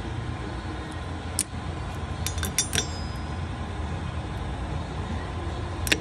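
Pliers clicking and clinking against the steel locking pin and axle nut as the pin is bent over: a sharp click about a second and a half in, a quick run of clinks around two and a half seconds, and another click near the end, over a steady low hum.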